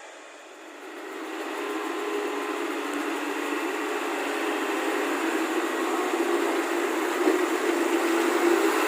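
Heavy earthmoving machine's diesel engine running, growing louder about a second in and then holding steady with a slow further rise.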